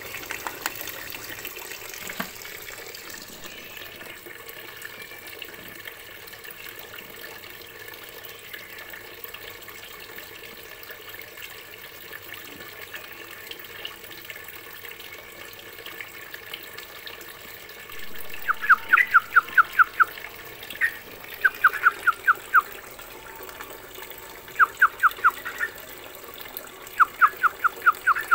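A steady hiss, then a songbird calling loudly from about two-thirds of the way in: four bursts of quick repeated notes, each burst about a second long.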